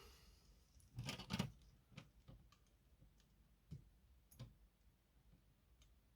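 Mostly quiet, with a few small clicks and taps from handling electronic components and tools on a workbench; the loudest is a short cluster about a second in, followed by several lighter single ticks.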